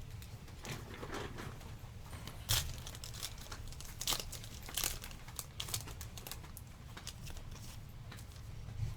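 A foil trading-card pack wrapper being torn open and crinkled by hand, with sharp crackles of the foil a few times.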